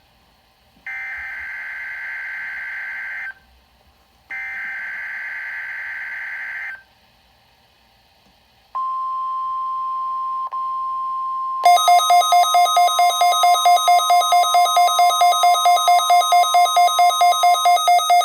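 NOAA Weather Radio required weekly test: two bursts of buzzy, warbling SAME digital header tones, then after a short pause the steady 1050 Hz warning alarm tone. About three seconds into the tone, a weather alert receiver's own alarm, triggered by it, starts beeping loudly at about four beeps a second.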